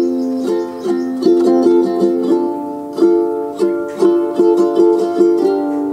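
Instrumental background music: short notes struck in a steady rhythm over held chords.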